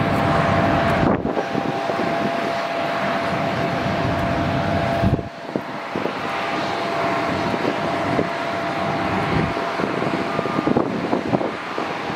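Jet engines of a taxiing Airbus A330-900, Rolls-Royce Trent 7000s at low taxi power: a steady rushing noise with a steady whine running through it. The sound drops out briefly about a second in and again about five seconds in.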